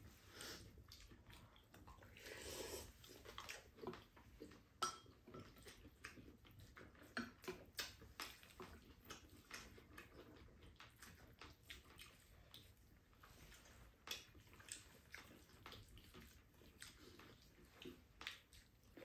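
Faint eating sounds: chopsticks and spoons clicking and scraping irregularly against ceramic rice bowls, with chewing.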